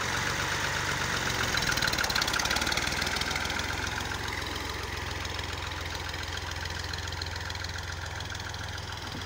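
New Holland 480 tractor's three-cylinder diesel engine running at a low, steady throb, fading gradually as the tractor moves away.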